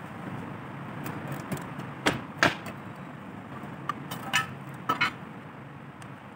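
Metal printing-ink tin being handled and opened: a series of sharp metallic clicks and clinks, the two loudest about two seconds in and a few more around four to five seconds in, some with a short ring, over a steady low hum.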